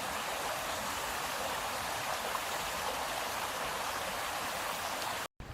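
Steady rush of running water from a small stream in spate, pouring over the top of the pipe that normally carries it into the flooded river. It cuts off abruptly near the end.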